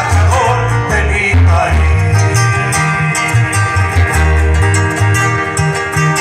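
Live band music played on guitars, with a requinto lead over a stepping bass line.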